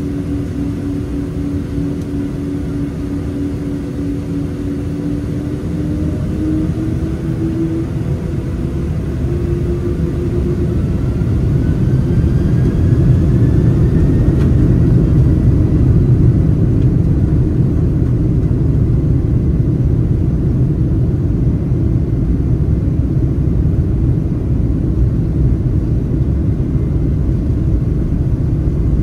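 Boeing 767-300ER's jet engines heard from the cabin over the wing, spooling up to takeoff thrust with a rising whine about six to fifteen seconds in. A loud, steady low rumble of engines and wheels on the runway then builds as the takeoff roll begins.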